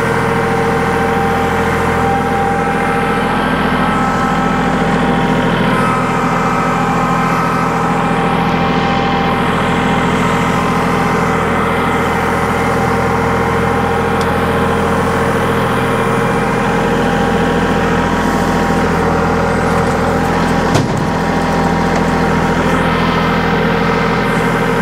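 Compact tractor's engine running steadily at a constant speed while it carries a loaded front-loader bucket of dirt. A single short knock sounds near the end.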